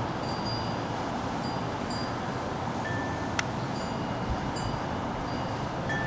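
Scattered clear ringing tones, one or two at a time at several different high pitches, over a steady background rumble and hiss; a single sharp click about halfway through.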